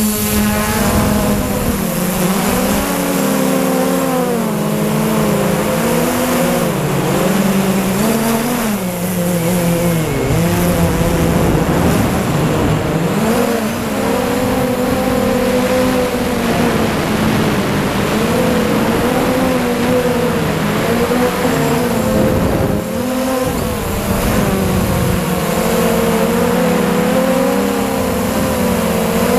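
MJX Bugs 3 quadcopter's brushless motors and propellers whining, heard from its own onboard camera, the pitch rising and falling continually as the throttle changes.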